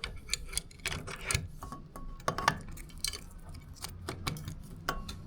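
Metal lock hardware being handled and fitted: the inside plate of an Alarm Lock DL2700 keypad lock going onto the door, with irregular clicks and clinks, a few of them ringing briefly.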